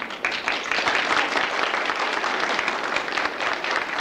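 Audience applauding: many hands clapping, building quickly just after the start and then holding steady.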